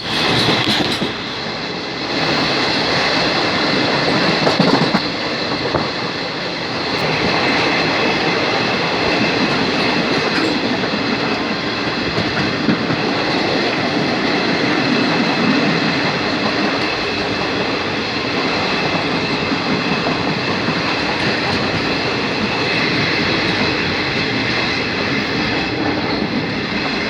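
Passenger train running along the track, heard from on board: a steady rumble and clatter of the wheels over the rails, with several steady high ringing tones over it.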